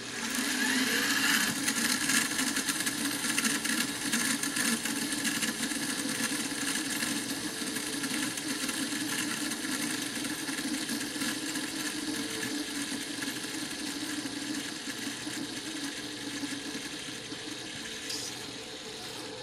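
Small metal gear train of an ADF receiver's drum display whirring as it spins freely after being flicked round by hand. The whir starts suddenly and slowly dies away as it coasts.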